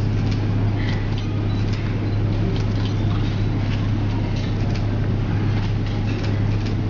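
A steady low electrical hum with an even hiss from a live sound system, with faint scattered rustles and taps of a handled corded microphone.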